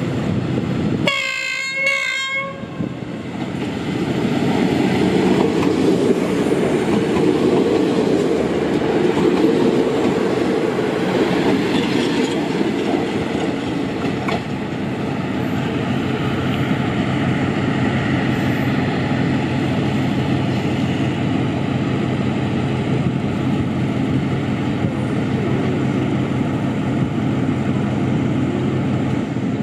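Train horn sounding once, briefly, about a second in, then a train running past on the rails: a steady rumble with wheel clatter that builds up and carries on.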